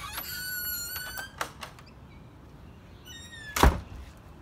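Front door being opened with a long, steady hinge squeal. About three seconds in comes a shorter squeal, then a loud thud as the door shuts.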